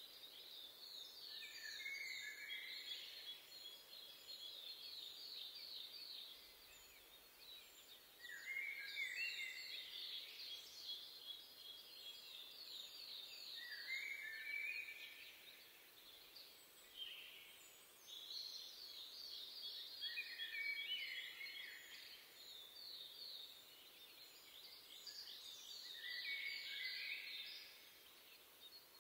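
Songbirds singing: phrases of rapid high notes, each ending in lower notes, repeating every several seconds, with faint higher chirps in between.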